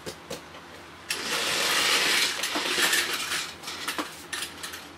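Plastic toy train cars and blue plastic track clattering and rattling as a child handles them, a dense rustling clatter from about a second in, then a few light clicks near the end as a train car is pressed onto the track.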